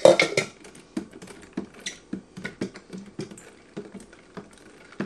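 Long spoon stirring sugared mango water in a large glass jar, knocking and clicking against the glass about twice a second, with a louder clatter at the very start.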